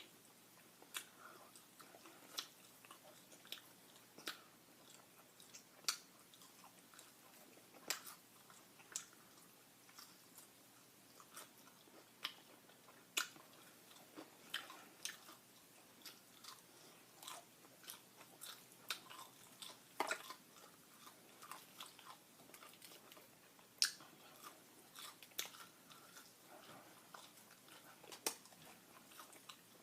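Close-miked eating of crispy fried chicken: bites and chewing with irregular sharp crunches, about one or two a second.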